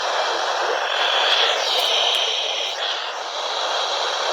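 Steady, loud radio static hiss from a weak or breaking-up broadcast signal, with only faint wavering traces of a voice buried in it.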